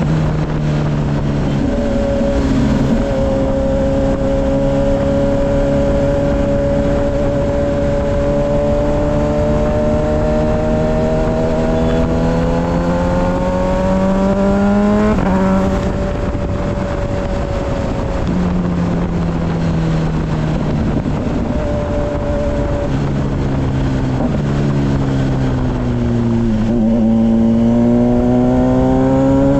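Kawasaki Ninja 1000SX's inline-four engine heard on board at highway speed, its pitch climbing slowly under acceleration. The pitch drops sharply once about halfway through, as at a gear change, holds roughly level, then climbs again near the end, with wind rush under the engine note.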